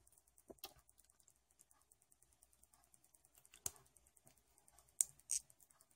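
A few small, sharp plastic clicks scattered through near silence, from Lego-style minifigure parts being handled and fitted together. The loudest pair comes about five seconds in.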